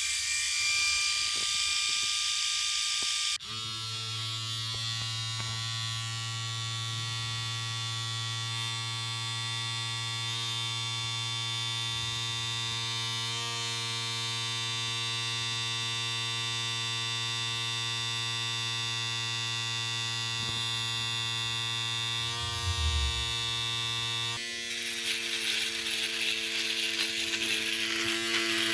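Electric shaver running with a steady buzzing hum. It switches abruptly to a different shaver's buzz about three seconds in and again near the end.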